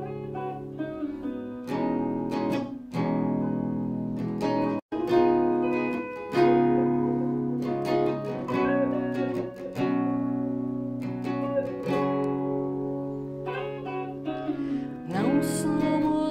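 Acoustic guitar and Telecaster-style electric guitar playing together, plucked chords and single notes ringing out. The sound drops out for an instant about five seconds in. A woman's singing voice comes in right at the end.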